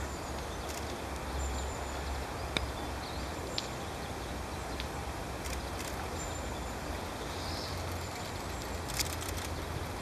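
Outdoor pond ambience: a steady low rumble of background noise, with a few faint, short, high-pitched bird calls and three sharp clicks.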